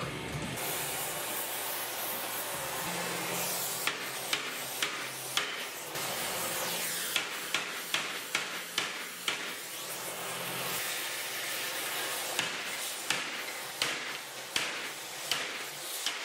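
Oxy-acetylene torch hissing steadily while a bent steel plow bracket is heated, with irregular hammer blows on the hot metal from about four seconds in as it is beaten back into shape.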